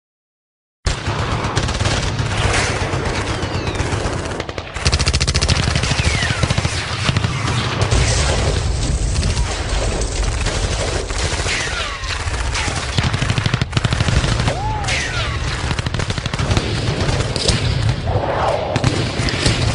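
Continuous, rapid machine-gun fire, a dense battle soundtrack that starts suddenly about a second in. Several short falling whistles sound over it.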